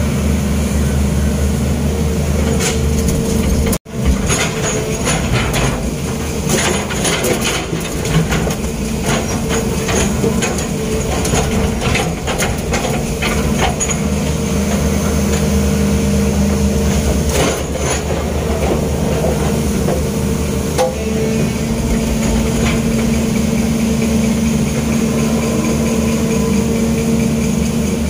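Long-reach excavator's diesel engine running steadily under load, heard from inside the cab. A run of knocks and clatter comes from about four to fourteen seconds in, with a few more later. The sound cuts out briefly just before four seconds in.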